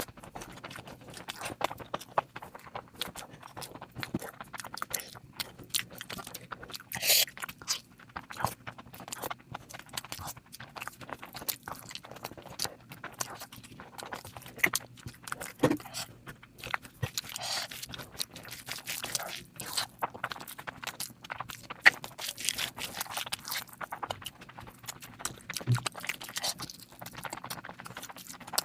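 Close-miked eating sounds of a person eating curry and rice: chewing with many irregular wet mouth clicks and smacks.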